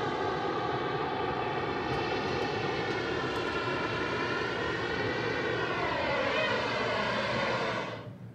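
Hot air balloon's propane burner firing in one long steady roar, which cuts off shortly before the end.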